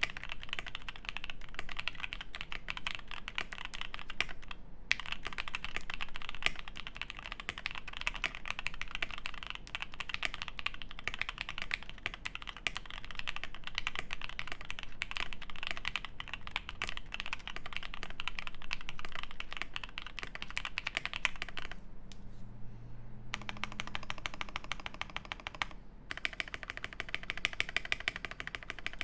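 Continuous typing on a Primus75 mechanical keyboard with lubed Alpaca linear switches on a polycarbonate plate, tape- and PE-foam-modded, with GMK Olivia++ keycaps. The keystrokes are rapid and dense, with a brief pause about five seconds in and a longer one a little over twenty seconds in.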